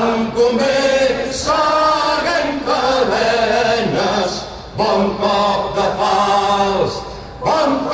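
Voices singing together in unison, a slow song in long held notes, with short breaks between phrases.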